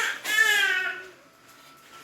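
A single loud wailing cry, about a second long and falling slightly in pitch.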